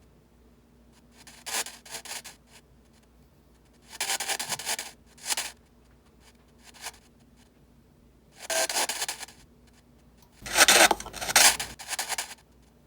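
Spirit box sweep radio played through a DAS-ANC noise-control unit: short bursts of hissing radio static, a second or so each, separated by near-quiet gaps. The longest and loudest burst comes near the end.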